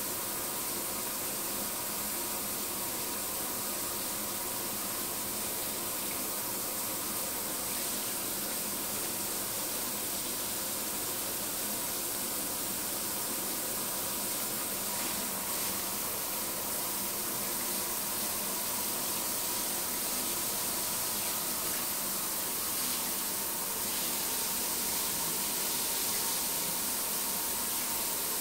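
A steady rush of running water in a tiled bathroom, growing slightly louder in the second half.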